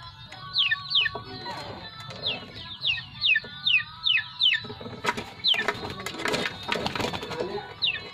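Baby chicks peeping: short, high cheeps that fall in pitch, about two a second. There is a hen's low clucking under them, and a burst of rustling and scratching from about five to seven seconds in.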